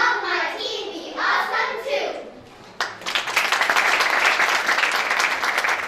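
A voice for about two seconds, then audience clapping breaks out about three seconds in and continues.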